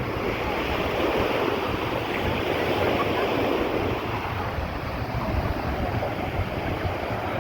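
Sea waves washing onto a sandy beach, a steady surf, with wind buffeting the microphone.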